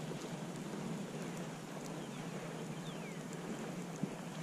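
Steady rushing noise of wind on the microphone beside an open pond. Two short falling whistles come about two and three seconds in.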